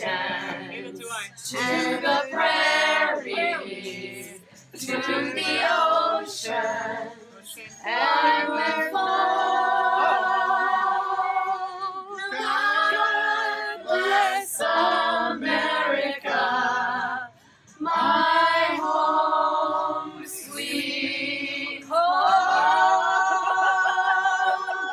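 Voices singing together without accompaniment, mostly women's, in phrases with long held notes.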